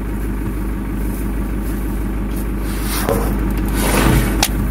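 Safari jeep's engine idling steadily, with a few scraping rushes of noise late on and a sharp click near the end.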